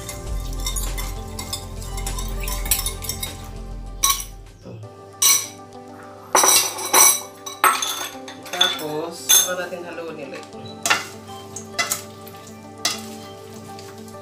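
Spoon clinking and scraping against bowls as a dressing is poured over a salad and the salad is stirred and tossed in a stainless steel mixing bowl. From about four seconds in there is a string of sharp clinks, roughly one a second.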